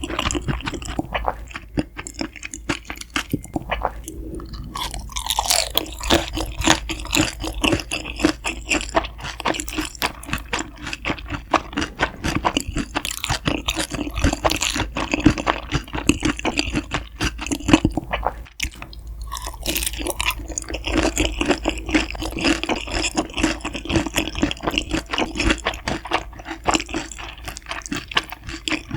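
Close-miked eating: irregular crunching and chewing of crisp food, bite after bite.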